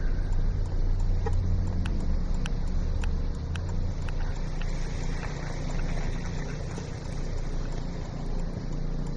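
Car driving, heard from inside the cabin with a window open: a steady low engine and road rumble that eases a little about four seconds in. A faint, regular ticking, a little under two a second, runs through the first half.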